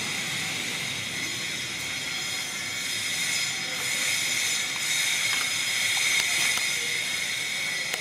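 Steady high-pitched hiss with a fixed droning band in it, growing slightly louder in the second half.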